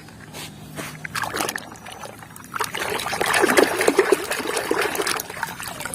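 Water trickling and splashing as a toy is washed, getting louder about halfway through.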